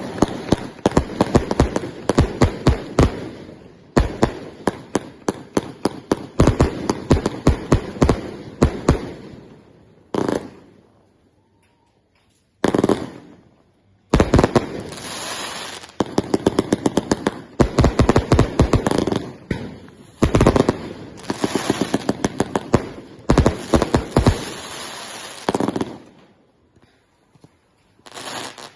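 Rapid-fire sharp bangs, several a second, in long runs broken by a few short pauses, like an automatic weapon firing in bursts.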